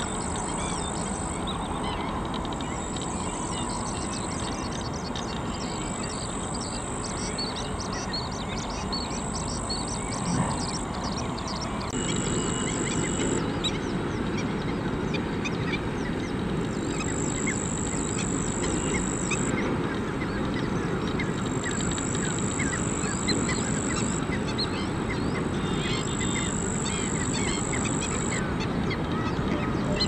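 Many wetland birds calling at once in short, quick notes, over a high buzz that comes and goes in spells of a second or two. The whole gets a little louder about twelve seconds in.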